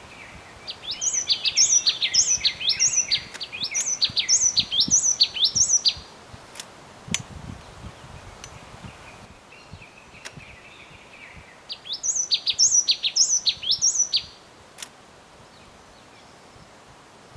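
A songbird singing a quick series of high notes that slide downward, about three a second, in two bouts several seconds apart, with a softer lower warble between them.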